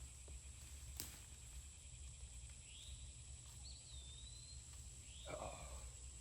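Outdoor insect and bird ambience: a steady high insect drone, with a bird repeating a short chirp every couple of seconds and giving one longer wavering whistle midway. A sharp click about a second in and a brief rustle near the end.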